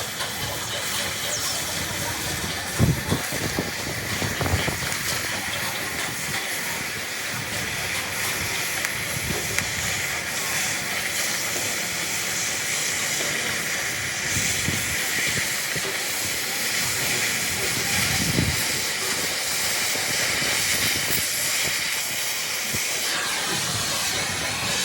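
Welding arc on steel hissing steadily, with a few low thumps in between.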